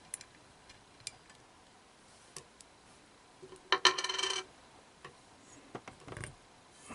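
Small metal clicks as the nut and washer are worked off the raw water pump's pulley shaft by hand, with a brief ringing metallic rattle about four seconds in, like a small steel part being set down, and a few more clicks and a soft knock near the end as the pulley is handled.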